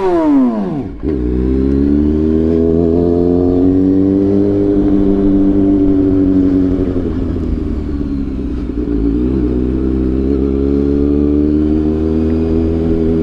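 Kawasaki ZX6R 636's inline-four engine with the catalytic converter removed and an SC-Project link pipe fitted: revs fall sharply in the first second, then it holds a steady, slightly wavering engine speed.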